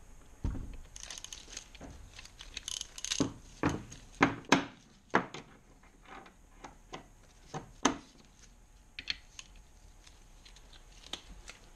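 Metal clinks and knocks of hand tools and loose engine parts being handled on a bench, with a short run of quick ratchet clicks about a second in. The loudest knocks come around four to five seconds in.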